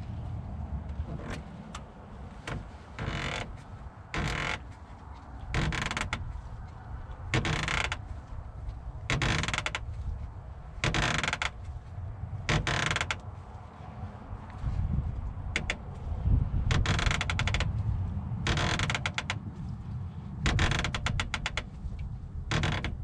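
Plastic radiator drain petcock being screwed back in by hand: about a dozen short creaking, rasping turns, one every second or two, some with quick clicks, over a low wind rumble on the microphone.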